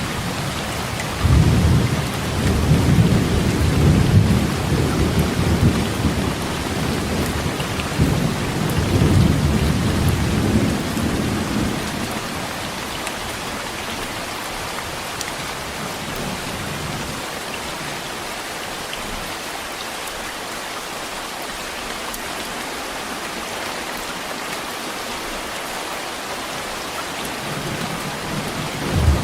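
Heavy rain falling steadily, with thunder rumbling low through the first eleven seconds or so in two swells. The rest is rain alone until a new roll of thunder starts at the very end.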